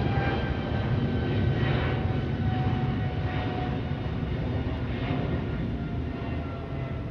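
An airplane flying past, its engine drone and rumble with tones slowly falling in pitch as it moves away and gradually fades.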